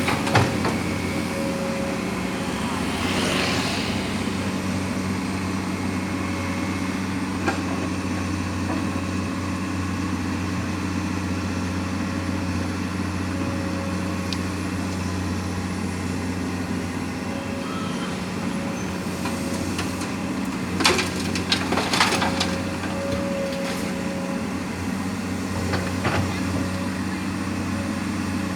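Heavy diesel earthmoving machinery, a mining excavator and haul trucks, running at a steady low drone. A few short metallic clanks come about three-quarters of the way through.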